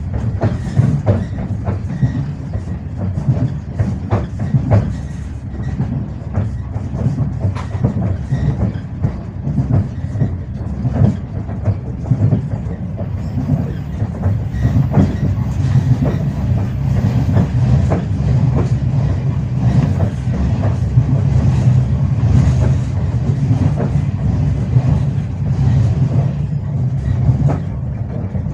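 Passenger train wheels clattering over the rail joints: a steady low rumble with quick, frequent knocks of the wheels running through the whole stretch.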